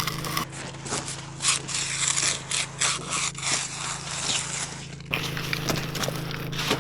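Concrete hand edger scraping along the edge of a freshly poured, still-wet concrete slab in a series of uneven back-and-forth strokes, over a steady low hum.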